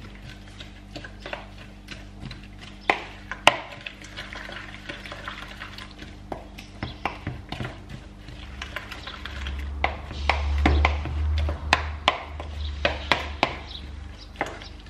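A wooden spatula stirs and folds a wet mix of chopped vegetables and beaten egg in a plastic bowl, with irregular clicks and knocks of the spatula against the bowl. A low rumble runs for a few seconds past the middle.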